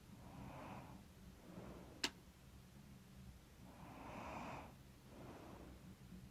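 A sleeping woman's slow, heavy breathing close to the microphone, soft breaths in and out a little stuffy from a blocked nose, the loudest breath about four seconds in. A single sharp click about two seconds in.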